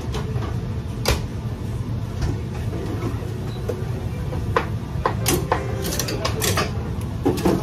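Restaurant kitchen at work: a steady low hum of ventilation under clatter and clinks of dishes, pans and utensils, with a denser run of clinks in the second half.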